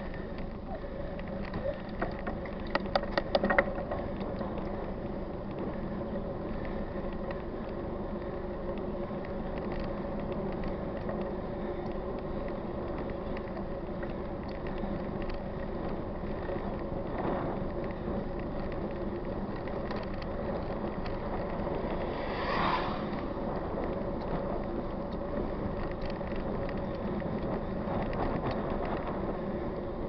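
A 29-inch mountain bike rolling along a paved road, its tyres and drivetrain giving a steady noise with wind on the microphone. A quick run of mechanical clicks comes about three seconds in.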